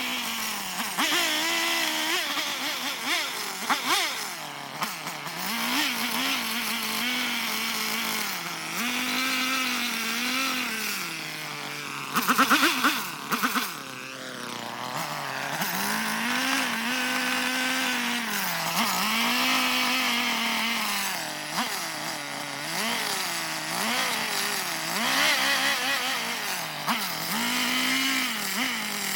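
Carving chainsaw cutting into a block of eastern red cedar, its pitch repeatedly rising and falling as the saw is throttled up into each cut and eased off between cuts, with a short louder stretch about twelve seconds in.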